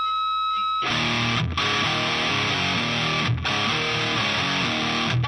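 Heavy rock music led by distorted electric guitar: a single high note is held, then the full band comes in about a second in, with short breaks in the riff roughly every two seconds.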